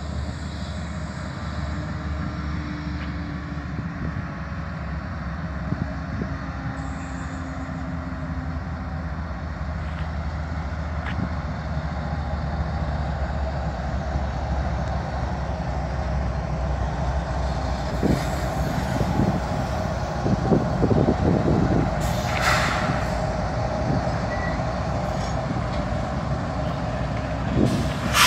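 Diesel freight locomotives running light through a rail yard, their engines rumbling and growing louder as they come closer. About two-thirds of the way in there is a run of knocks, then a brief hiss of air.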